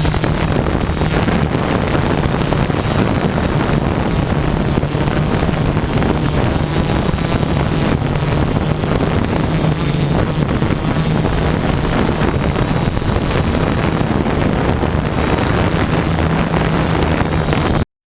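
Steady hum of a quadcopter's motors and propellers under heavy wind buffeting on the microphone, cutting off abruptly near the end.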